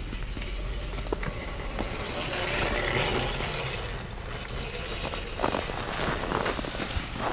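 OSET electric trials bike ridden over packed snow: a steady noise of its electric motor and tyres working through the snow, swelling as it passes close about three seconds in, with a few short crunches later on.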